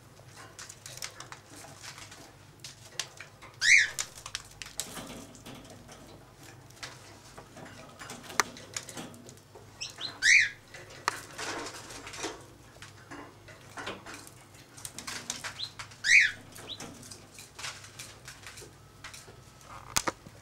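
A caged parrot calling three times, one short loud chirp about every six seconds, over soft scattered clicks and scratching of beaks pecking at seed.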